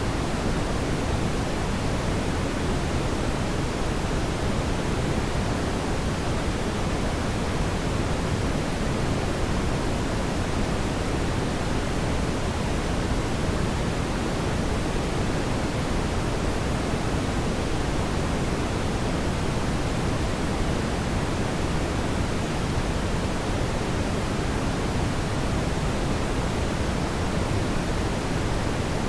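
Steady, even rushing of a fireplace fire, heavier in the low end, with no separate crackles or pops standing out.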